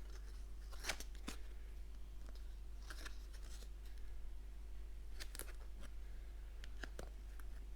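Stiff printed game cards being handled: scattered light clicks, taps and slides of card stock, a few a second at most, over a steady low electrical hum.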